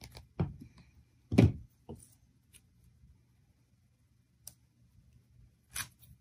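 Handling noises as craft materials are picked up and worked on a tabletop: a few separate knocks and thumps, the loudest about a second and a half in, a light click later, and a short rustle near the end.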